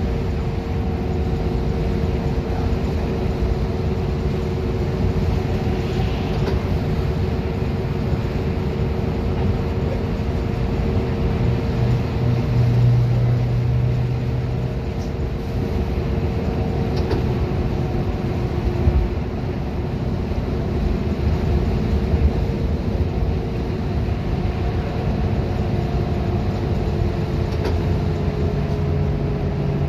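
Inside a 2011 Gillig Advantage transit bus driving at speed: a steady drone of engine, drivetrain and road noise, with a constant whine running through it.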